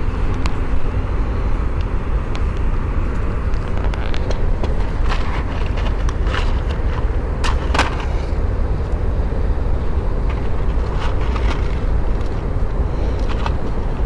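Steady wind rumble buffeting the microphone, with scattered small clicks and knocks from handling on deck. A match is struck and flares a little past halfway.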